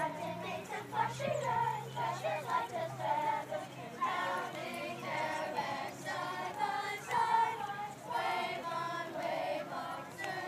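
A group of children singing together in high voices, holding notes, with a faint low steady tone underneath for most of it.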